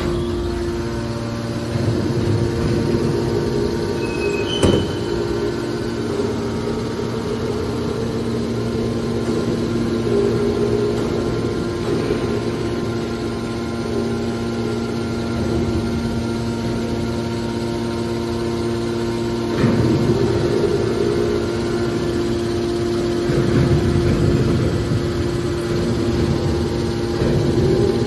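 Electric motor and hydraulic pump of a scrap-metal baler's power unit running with a steady hum. There is a sharp knock about four and a half seconds in and a few brief swells of noise later.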